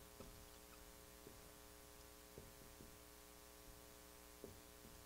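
Near silence with a steady electrical hum, broken by a few faint, short ticks of a dry-erase marker writing on a whiteboard.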